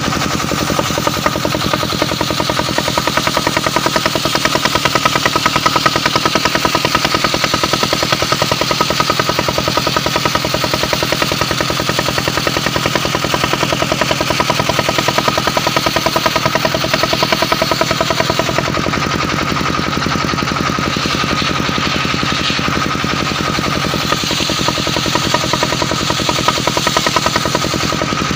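Portable engine-driven circular sawmill running steadily, with a fast, even engine beat under a steady high whine.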